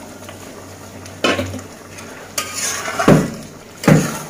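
Metal spatula stirring and scraping chicken curry in a metal karahi, clanking against the pan a few times from about a second in, loudest near the end.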